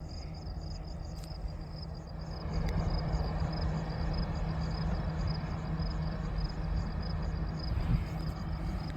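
Kartar combine harvester running steadily, its engine and machinery making a constant low hum that gets louder about two and a half seconds in.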